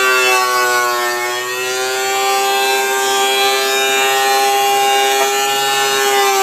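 WEN 13-inch three-blade benchtop planer running with a high, steady whine. Its pitch sags briefly about one and a half seconds in and again near the end as the cutterhead takes load from a rough-sawn board.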